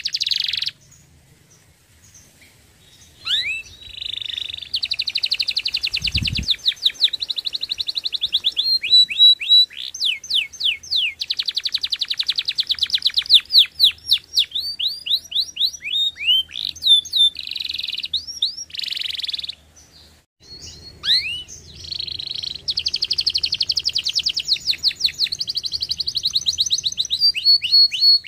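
Domestic canary singing: long rolling trills of rapidly repeated notes, mixed with quick up- and down-sweeping whistles, broken by two short pauses. A brief low thud sounds about six seconds in.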